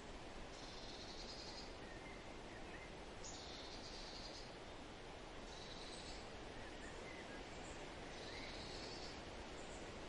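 Outdoor nature ambience: a faint, steady hiss. Over it, a high pulsed trill of about a second repeats every two seconds or so, and there are a few faint short bird chirps.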